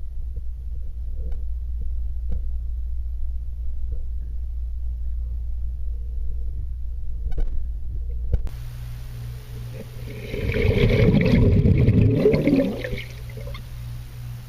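Muffled low rumble with faint clicks, typical of a camera held under pool water. About eight seconds in the sound changes abruptly, and a loud burst of bubbling, gurgling water follows for about three seconds.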